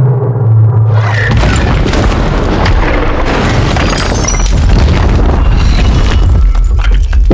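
A large explosion about a second in, with a heavy low rumble and crackling debris that carry on. It comes over a film score whose low tone slides downward just before the blast.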